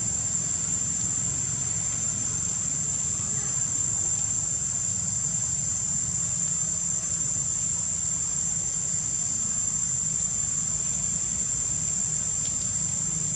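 Steady high-pitched drone of insects over a low steady rumble.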